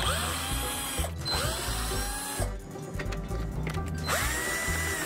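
Cordless drill-driver backing out Torx screws. Its motor whines up to speed and runs steadily in three bursts, the last one near the end.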